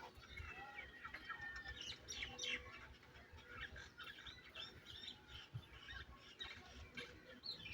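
Faint birdsong: many short chirps and whistles from several small birds, overlapping throughout.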